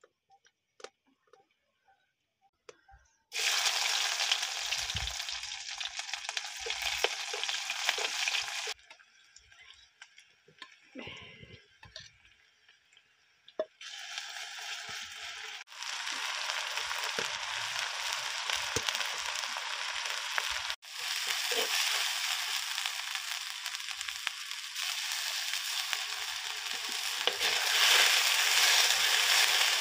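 Food frying in hot oil in an iron kadai over a wood fire, stirred with a metal spoon. The sizzle starts suddenly about three seconds in, dies down for a few seconds midway, then returns and is loudest near the end.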